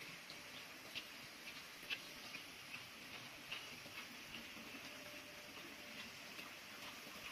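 Faint outdoor garden ambience: a steady high hiss with soft, irregular ticks or chirps about every half second.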